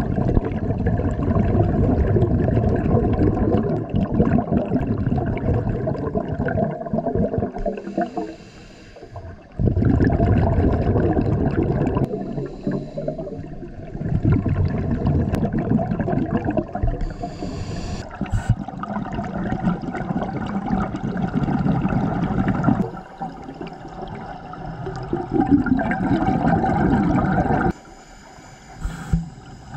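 Scuba diver breathing through a regulator underwater: long stretches of loud bubbling as exhaled air escapes, broken several times by short, quieter pauses with a faint hiss as the diver breathes in.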